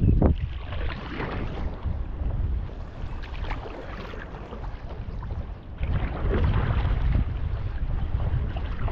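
Wind rumbling on the microphone, with water splashing and lapping around a stand-up paddleboard. The rumble swells in gusts, strongest at the start and again from about six seconds in.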